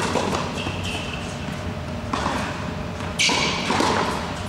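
Tennis ball struck by a racket on backhand strokes and bouncing on an indoor hard court. Several sharp hits and bounces, the loudest about three seconds in, echoing in a large hall.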